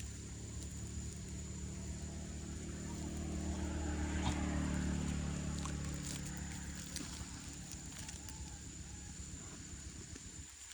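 Engine of a passing motor vehicle: its low hum grows louder toward the middle and then fades away. A steady high-pitched tone runs underneath.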